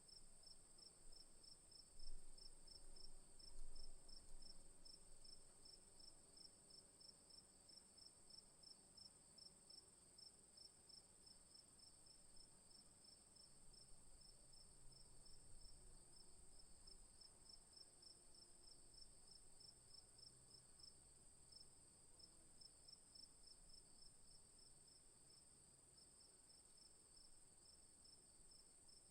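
Faint crickets chirping at night: one steady high-pitched trill over a rapid, evenly pulsed chirp, a few pulses a second. A couple of low bumps sound about two and three and a half seconds in.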